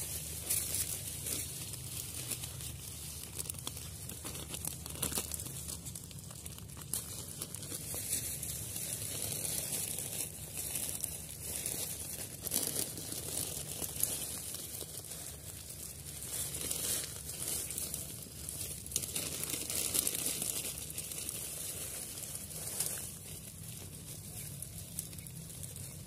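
Clear plastic bag crinkling and rustling in the hands as it is wrapped around a dry-grass nest, with irregular crackles throughout.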